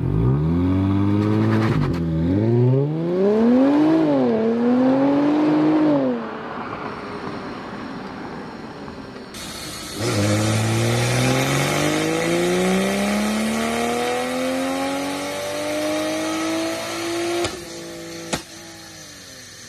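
Sports car engine accelerating hard: it climbs in revs through two quick gear shifts, eases off, then pulls in one long steady climb that cuts off suddenly, followed by a sharp click.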